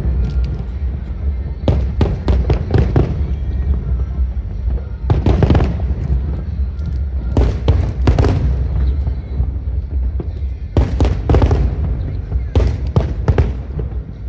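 Aerial fireworks bursting in repeated volleys of sharp bangs and crackles over a continuous deep rumble.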